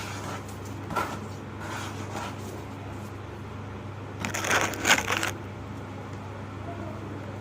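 Soft, dry crumbly material (pressed ash, sand or charcoal) crunching as it is crushed: a few light crunches, then a louder burst of crunching about four seconds in that lasts about a second.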